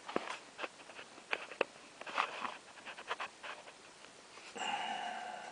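Light clicks and knocks of a plastic PC case fan being handled and positioned against the computer case. Near the end comes a brief pitched squeak, about a second long.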